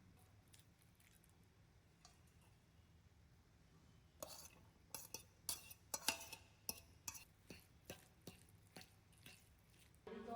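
Light kitchenware clinking: a string of irregular taps and clinks, about two a second, starting about four seconds in, some with a short ring.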